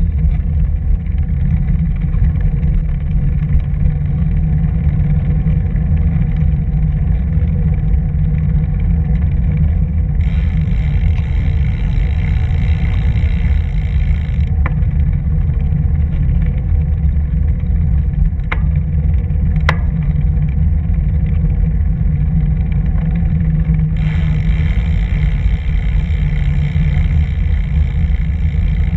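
Steady wind buffeting on the microphone and tyre rumble of a camera riding along a paved bike path. A brighter hiss joins in for a few seconds about ten seconds in and again near the end, with a couple of sharp ticks in between.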